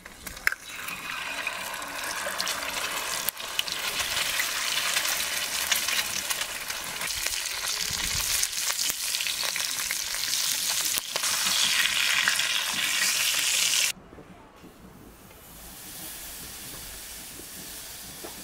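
Goose egg frying in hot fat in a cast-iron pan: a loud crackling sizzle, with a sharp crack just after the start as the egg is broken into the pan. About fourteen seconds in the sizzle cuts off abruptly to a much quieter steady hiss from the charcoal grill.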